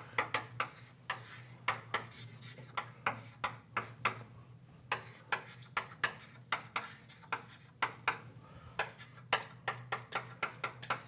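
Writing on a lecture board: quick, irregular taps and scratches, a few strokes a second, over a low steady hum.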